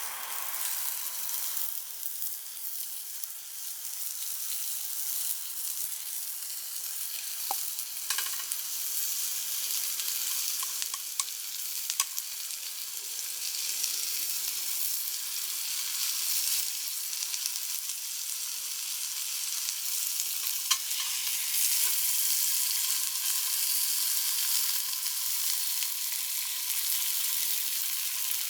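Wild boar meat sizzling over a campfire: a steady hiss with scattered pops and crackles, growing louder in the second half.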